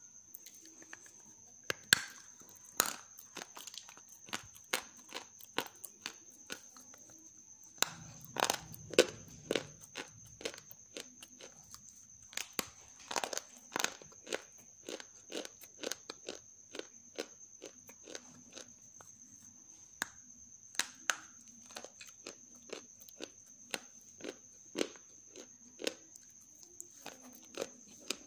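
Chunks of half-roasted grey clay crunching and crumbling as fingers squeeze and break them, made crisp by the roasting: a long series of sharp, irregular crunches. A faint steady high whine runs underneath.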